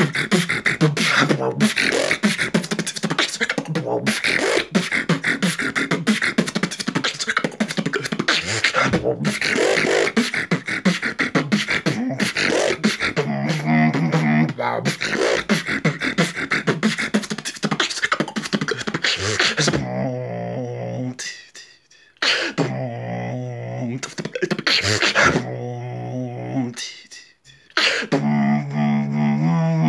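Solo freestyle vocal beatboxing: a dense, fast run of mouth-made percussive hits and clicks, switching about two-thirds of the way in to held, hummed bass tones broken by two short pauses.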